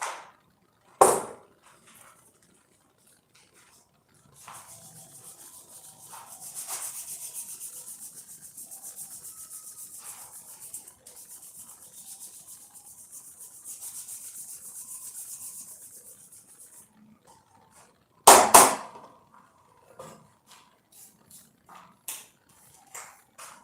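Steady rapid rubbing like hand sanding, lasting about twelve seconds. A sharp knock comes just before it and a loud knock after it, followed by a few light clicks.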